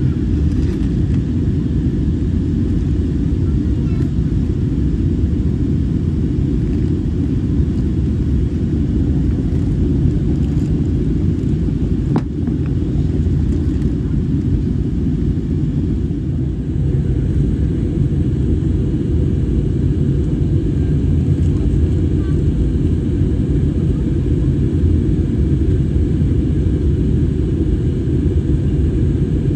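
Steady low roar inside the cabin of a Frontier Airbus A320neo in climb, from its CFM LEAP-1A engines and the airflow past the fuselage. There is one faint click about twelve seconds in.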